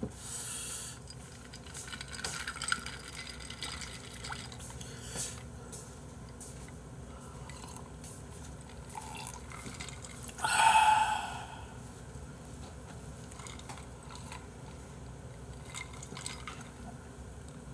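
A person drinking iced cola from a glass: quiet sips and swallows, with ice shifting in the glass. One louder noisy sound, about a second long, comes about ten seconds in.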